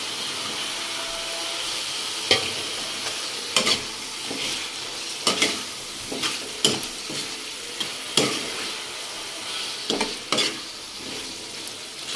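A steel ladle stirring paneer cubes into sizzling onion-tomato masala in a kadai: a steady frying sizzle, with sharp clinks and scrapes of the ladle against the pan every second or two from about two seconds in.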